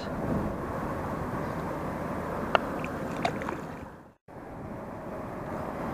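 Steady rush of river water with a few faint clicks. About four seconds in it fades out to a brief silence, then comes back.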